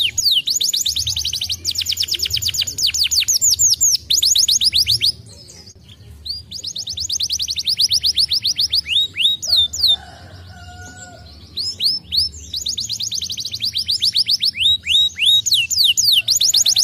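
Canary singing: long fast trills of quick downward-sweeping notes, broken by two short pauses about five and ten seconds in.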